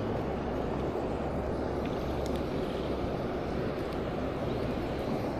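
Steady rush of a fast-flowing, flooded creek: a low, even noise, with a few faint ticks about two seconds in.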